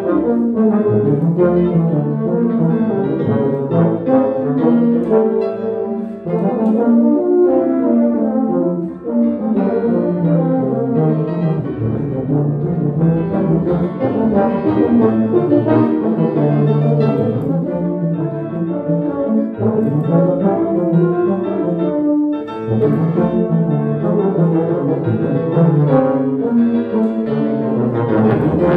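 Two tubas playing a classical duet with piano accompaniment, in continuous low melodic lines.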